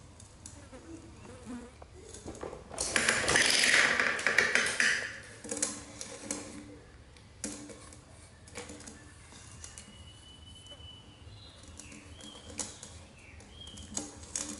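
A large milk-formula tin pushed and rolled over a tiled floor: a loud scraping rumble for about two seconds, about three seconds in, then scattered knocks and taps as it is handled.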